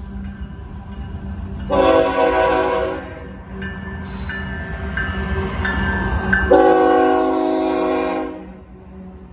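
BNSF diesel locomotive horn sounding two long blasts for a grade crossing, the second as the locomotive passes close by. Between the blasts a bell dings repeatedly over the steady low rumble of the diesel engines.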